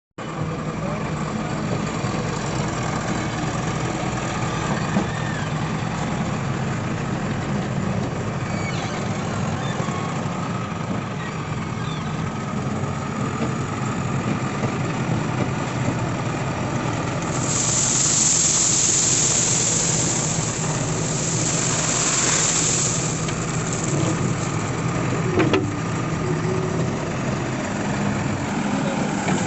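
Diesel engine of a JCB 3DX backhoe loader running steadily, with two stretches of loud hissing a little past halfway.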